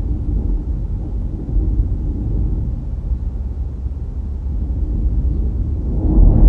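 Low, steady rumble of road and wind noise from a car driving, getting louder near the end.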